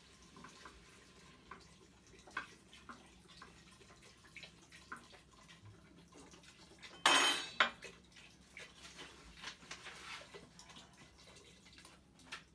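Vegetable broth poured from a carton into an Instant Pot's metal inner pot, with light clinks and splashes and one louder, brief burst about seven seconds in.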